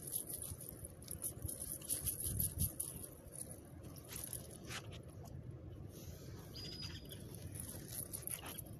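Light rustling and scattered clicks as a nylon cast net is handled and small fish are shaken out of it into a mesh basket, over a low rumble, with one short high chirp about two-thirds in.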